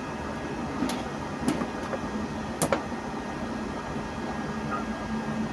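Steady hum and hiss of a switched-on SNAT 1 kW pure sine wave toroidal inverter, with three sharp clicks in the first three seconds.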